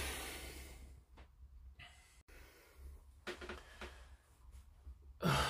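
Faint breathing and small handling noises in a quiet small room, with a brief dropout in the sound about two seconds in.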